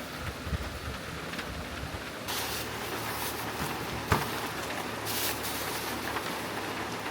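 Steady rain and mountain-stream noise. About two seconds in, a brighter steady hiss joins it, and there is a single sharp knock about four seconds in.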